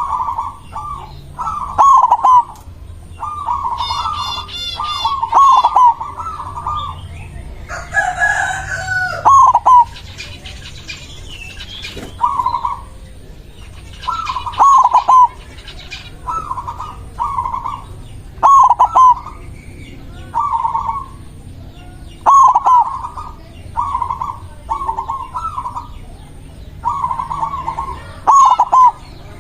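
White zebra dove (perkutut) cooing in short trilled phrases, repeated over and over with brief pauses between. A rooster crows once about eight seconds in.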